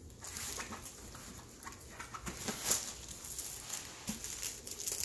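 Handling noise of a large diamond-painting canvas being rolled up by hand: a run of small, irregular rustles, crinkles and soft taps.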